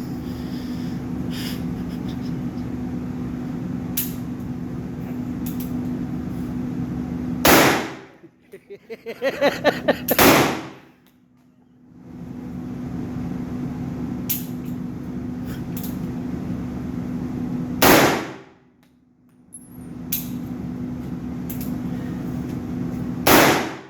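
Gunshots at a shooting range: four loud shots several seconds apart, with a quick run of about eight sharper cracks between the first two, over a steady hum.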